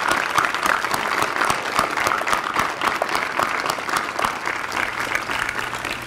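Audience applauding, many hands clapping together, fading near the end.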